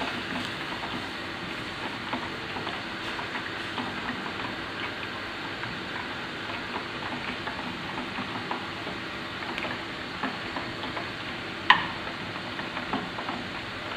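Wooden spoon stirring a milk béchamel in a small enamel saucepan on a gas stove, with light scraping and small taps against the pan, over a steady frying sizzle. One sharp knock near the end.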